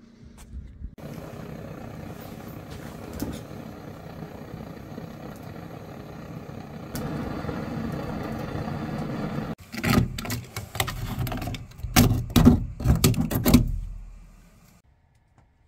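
Butane cartridge torch burning with a steady roaring hiss. About two thirds of the way in it gives way to a few seconds of loud, irregular crunching and scraping strokes, which then stop.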